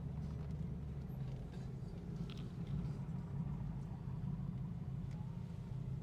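Steady low rumble of a vehicle's engine and road noise, heard from inside the moving vehicle, with a couple of faint ticks.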